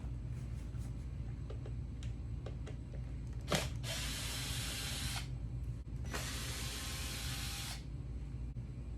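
Tools at work taking apart a car seat: a sharp click about a third of the way in, then two bursts of steady hiss, the second longer, over a constant low hum.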